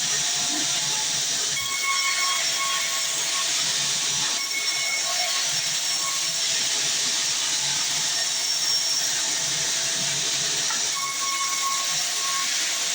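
Sawmill band saw running steadily through a dense log, a continuous high hiss with faint, intermittent whining tones.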